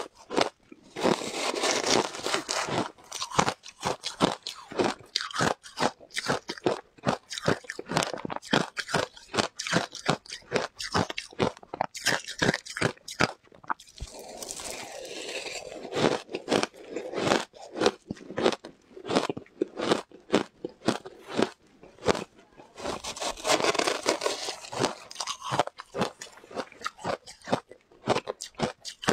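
Matcha-dusted shaved ice being bitten and chewed close to a lapel microphone: a steady run of sharp crunches, with a few denser, thicker stretches of crunching.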